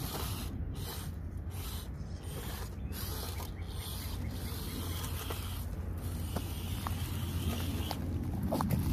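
Hobby Plus CR-18 1/18-scale RC crawler's electric motor and geared drivetrain running with a steady low hum as the truck crawls over rock, with scattered light clicks.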